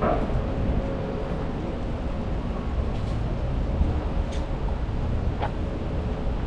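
Outdoor city-park ambience: a steady low rumble, with three brief sharp sounds about three, four and a half and five and a half seconds in.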